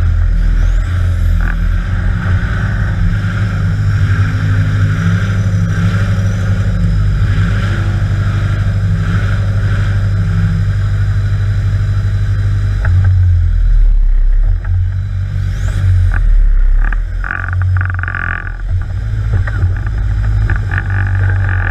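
Offroad trial buggy's engine running under load from inside the cabin, its revs rising and falling as the driver works the gears. Several knocks and clunks from the chassis come in the second half.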